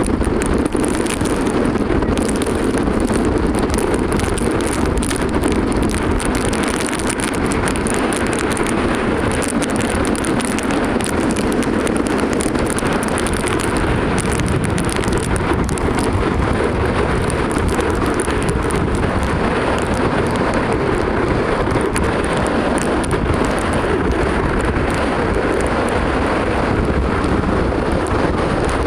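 Wind-driven rain in a mountain rainstorm: a steady, loud rush of wind buffeting the microphone, with many small ticks of raindrops striking close by.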